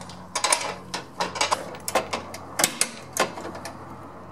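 Torque wrench ratcheting in short strokes, a series of sharp clicks about two or three a second, while tightening the rear nut and bolt of a lower control arm.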